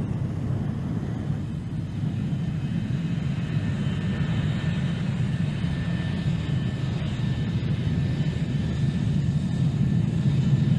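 Lockheed SR-71 Blackbird's Pratt & Whitney J58 jet engines running at low taxi power: a steady low rumble, with a thin high whine coming in about four seconds in.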